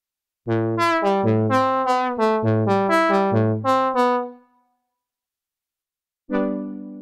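Cherry Audio Octave Cat software synthesizer, an emulation of the 1976 Octave CAT, playing a brass preset: a fast run of about a dozen short, bright notes over a lower line for about four seconds. After a pause, a new brass patch starts a held note near the end.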